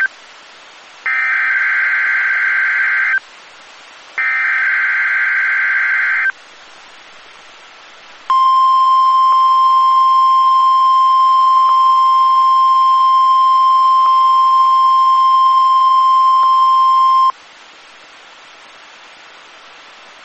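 NOAA Weather Radio Specific Area Message Encoding (SAME) header: two bursts of buzzy digital data tones, each about two seconds, with a gap between. It is followed by the steady 1050 Hz warning alarm tone for about nine seconds, which cuts off abruptly into radio hiss. Together they make up the test signal of a required weekly test of the weather radio's public warning system.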